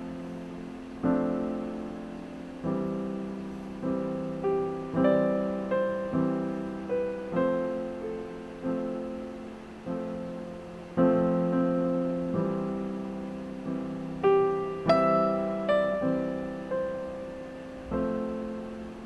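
Background piano music: soft chords and single notes, each struck and left to fade, roughly one a second.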